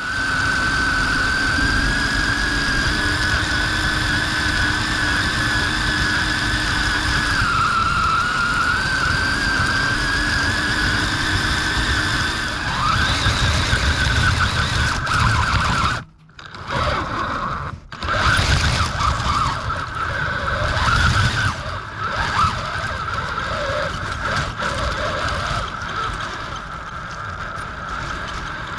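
Axial Capra RC rock crawler's electric motor and geared drivetrain whining steadily as it drives, with the rumble of its tyres working through snow underneath. The whine wavers slightly in pitch and cuts out briefly twice a little past halfway.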